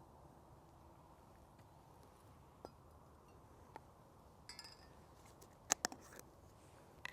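A few small sharp clinks and taps of a camp mug and cooking kit being handled, over a faint steady hush. The loudest, a quick pair, come about two thirds of the way through.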